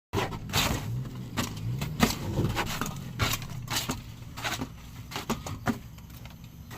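Rapid, irregular clicks, knocks and clatters, like small hard objects being handled.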